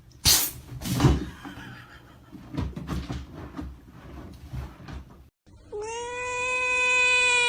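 A cat crying: two short, harsh cries near the start, then a long, drawn-out meow that holds one steady pitch through the last part.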